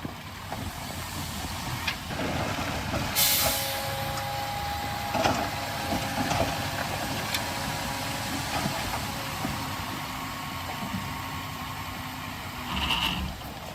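Heavy diesel earthmoving machinery running steadily. A short sharp hiss of air comes about three seconds in and another near the end, with a brief whine in between.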